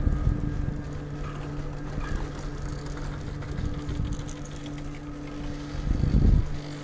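Nippon Cable pair chairlift running, with a steady mechanical hum over a low rumble; the rumble grows louder for a moment about six seconds in.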